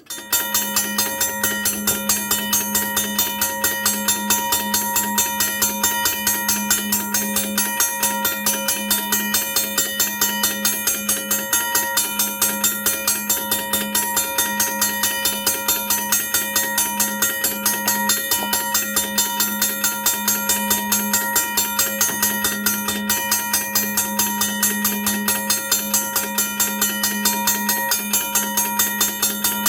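A 2003 second-generation Safetran mechanical railroad crossing bell ringing continuously. Its hammer strikes the gong in a fast, even rhythm, and the bell starts abruptly.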